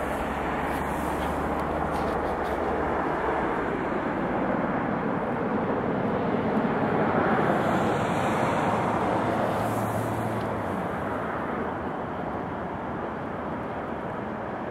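Twin-engine jet airliner climbing away after take-off at high thrust: a steady rushing jet noise that swells to its loudest about halfway through, then slowly fades as the aircraft recedes.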